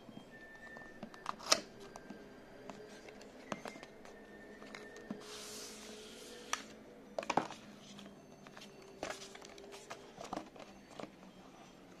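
Handling noise of cardboard and paper packaging: scattered taps and clicks as the box parts are moved, with a short papery rustle or slide about five seconds in.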